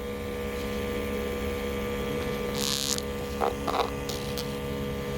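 Steady mechanical hum with several constant tones. A brief hiss comes about two and a half seconds in, and two short sounds follow a second later.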